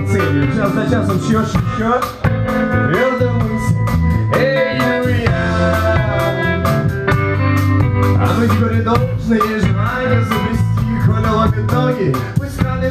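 Live band playing: a man singing over electric guitar, electric bass and a drum kit.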